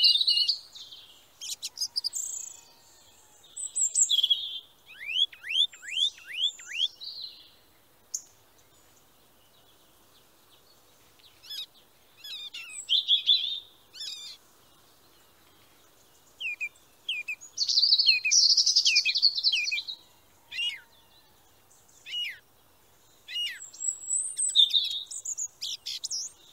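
Wild birds chirping and singing in short spells, with a quick run of about six downward-sliding whistles about five seconds in and a dense burst of chirping a little past halfway.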